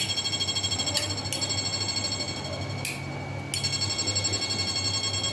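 Electric fish-shocking machine (a high-wattage MOSFET inverter) running under a bulb load: a rapid pulsing buzz of about eight pulses a second over a low hum, with a high whine that jumps in pitch a few times as its controls are turned.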